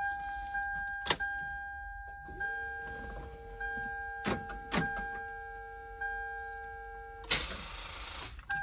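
A steady electronic tone inside the car's cabin, at two pitches with short gaps about every second, with a second lower tone joining about two and a half seconds in, a few clicks, and a roughly one-second burst of rushing noise near the end.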